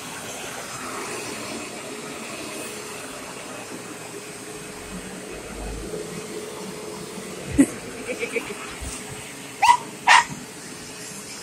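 Dog barking over the steady hum of an upright vacuum cleaner running. About two-thirds through there is a sudden loud noise, then a few short yips, then two loud barks close together near the end.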